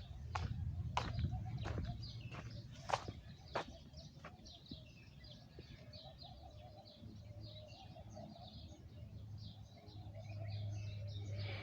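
Many small birds chirping in a dense run of short high calls, over a steady low hum, with several sharp clicks or taps in the first few seconds.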